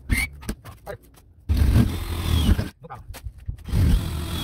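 Hand-held power drill running in two bursts of about a second each, about a second and a half in and again near the end, as the bit bores a pilot hole through a door.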